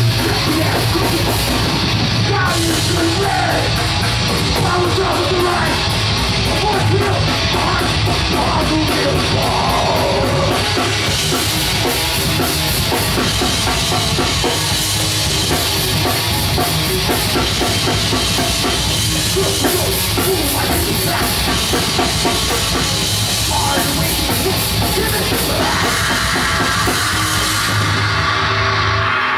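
Thrash metal band playing live and loud: distorted electric guitars over a drum kit, steady throughout.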